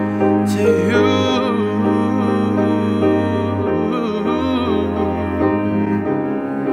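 Instrumental music: sustained piano and string chords with a low bass note.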